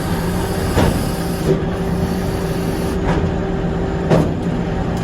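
Sawmill machinery running with a steady hum and mechanical noise, broken three times by short knocks.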